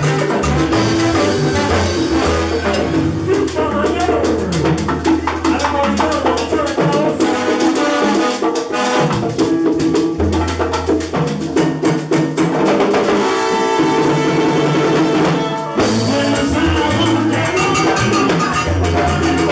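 Live salsa band playing, with trombones, bass and hand percussion over a dense, steady rhythm. A sustained chord stands out about two-thirds of the way in, and the band breaks off for a moment before the groove resumes.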